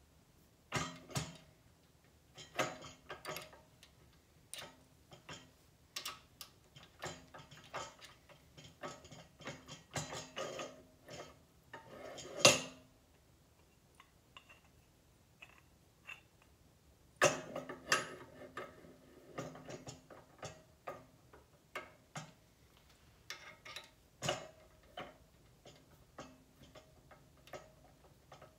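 Metal parts of a home oil press being handled and fitted together: the pressing chamber, rod and heater ring clicking, scraping and clacking as they are slid and twisted into place, with one loud clack about twelve seconds in.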